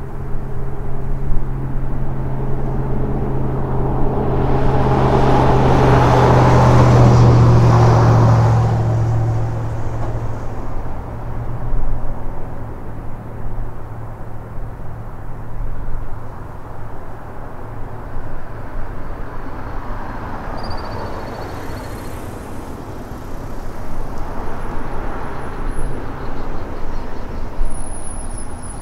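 A road vehicle passing, swelling to its loudest about seven seconds in and fading away by ten, over a steady low hum.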